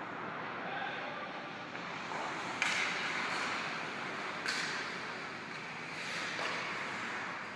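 Ice hockey skates scraping and carving on the ice, with two sharp puck cracks about two seconds apart, the first the loudest, and a fainter knock near the end, echoing in the empty rink.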